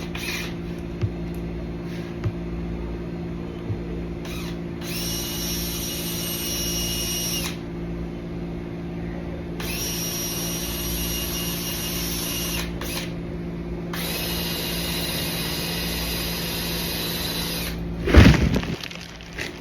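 Power tool running in three bursts of about three seconds each, a high whine over a steady low hum, with a loud thump near the end.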